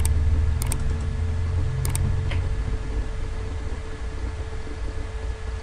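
Computer mouse clicking a few times, about a second in and again near two seconds, over a steady low hum with a faint constant tone.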